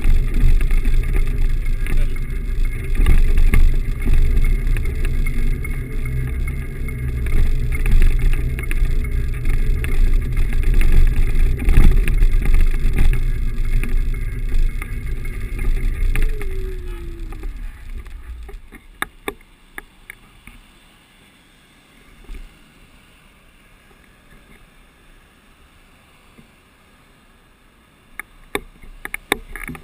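Wind buffeting and road rumble on the camera microphone of a Xiaomi M365 Pro electric scooter riding along, with a short falling whine as it slows. A little past halfway the rumble dies away as the scooter stops, leaving a much quieter stretch with a few small clicks, and the noise picks up again near the end.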